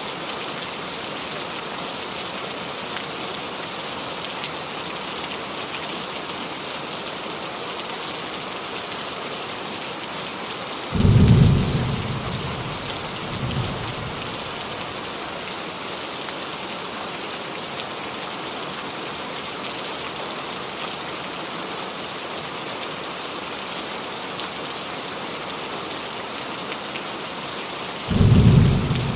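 Steady rain falling on a roof, with two low thunder rumbles: one about a third of the way in and one near the end. Each starts suddenly and is followed by a fainter after-rumble.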